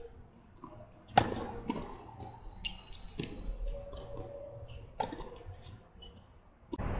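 Tennis ball hit back and forth with rackets in a doubles rally: about five sharp pops a second or two apart, the loudest about a second in.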